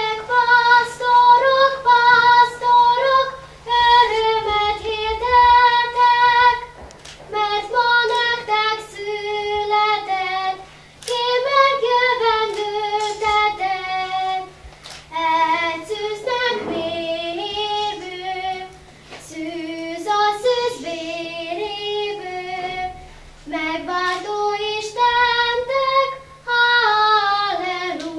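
A single high solo voice singing a melody in short phrases with brief pauses between them, over a steady low hum.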